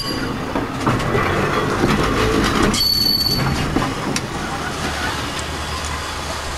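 Restored 1905 BC Electric interurban streetcar rolling slowly past on steel wheels, rumbling and clacking with scattered knocks from the wheels. A brief high squeal sounds about three seconds in.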